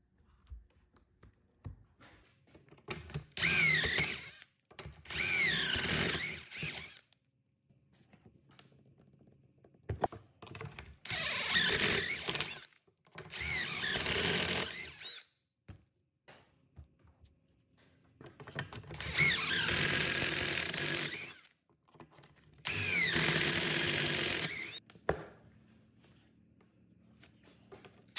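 DeWalt cordless drill boring pocket holes through a Kreg pocket-hole jig into the end of a 2x4, in six runs of about two seconds each, grouped in pairs, with the motor's pitch dipping and rising as the bit loads up in the wood.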